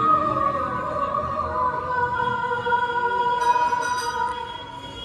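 Music with singing, the voice holding long steady notes that step from one pitch to another.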